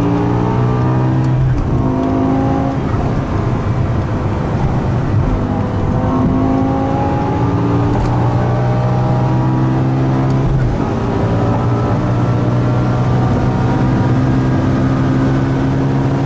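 G-Power Hurricane RR BMW M5's 800 hp V10 at full acceleration on the autobahn, its note climbing through each gear with several upshifts, building towards about 260 km/h.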